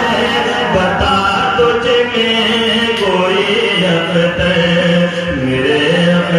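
A man chanting a naat, an Urdu devotional poem, into a microphone, singing long held melodic lines without words breaking into speech.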